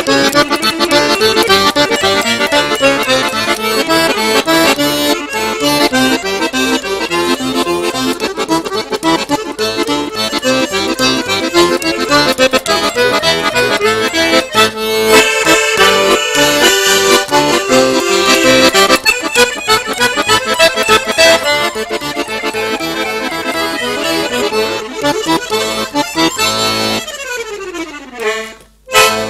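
Piano accordion playing a fast piece with dense runs of notes. Near the end a rapid descending run sweeps down the keyboard, followed by a brief break.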